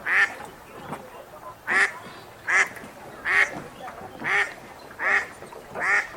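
Wild duck quacking in a steady series, about seven short quacks evenly spaced less than a second apart.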